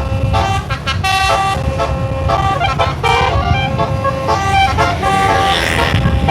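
Bus telolet (basuri) musical multi-tone horn playing a melody of held notes that step from pitch to pitch, over the low rumble of the bus and traffic. A brief hiss comes about five seconds in.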